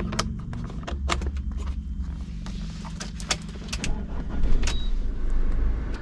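Camper van's diesel engine idling with a steady low hum. Over it come sharp clicks and knocks as a 12-volt plug and its cable are handled and pushed into the dashboard cigarette-lighter socket.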